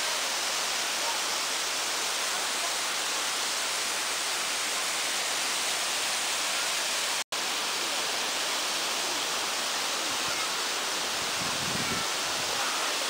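Uracher Wasserfall waterfall rushing as a steady, even roar of falling water. The sound drops out for an instant about seven seconds in.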